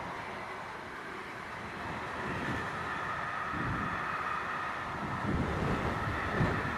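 Loaded car-carrier freight wagons rolling past, a steady rumble of wheels on rail with a high ringing whine over it. Wind buffets the microphone now and then in the second half.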